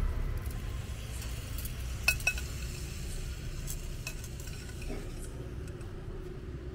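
Marinated chicken wings sizzling faintly on a charcoal grill's wire rack over the hot coals, with one sharp metallic clink about two seconds in and a low rumble underneath.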